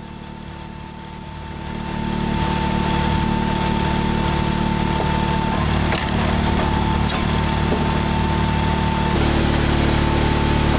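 Gas engine of a vertical hydraulic log splitter running steadily with a high whine, growing louder about two seconds in as it takes up the load. Two sharp cracks about a second apart past the middle as wood splits.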